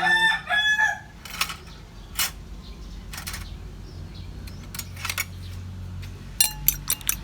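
A rooster crows in the first second. Then come a few scattered sharp clicks, and near the end a quick run of regular taps, about four a second, from a fork beating an egg in a bowl.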